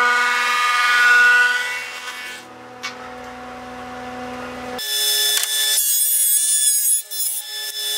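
Benchtop table saw running with a steady whine, crosscutting a wooden board, loudest about a second in. The sound drops after about two and a half seconds, with a knock shortly after, then changes abruptly about five seconds in to a higher-pitched whine with a rapid flutter.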